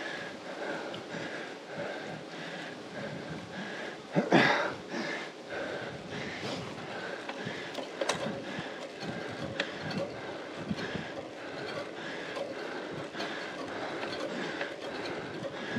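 A road cyclist breathing hard while climbing a steep grade, over the hiss of the bike's tyres on wet tarmac. A single louder burst comes about four seconds in.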